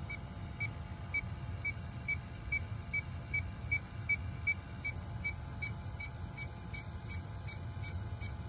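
Inficon D-TEK 3 refrigerant leak detector beeping at an even pace, a little over two short high beeps a second, while its probe samples at an iced-over evaporator coil. A steady low rumble runs underneath.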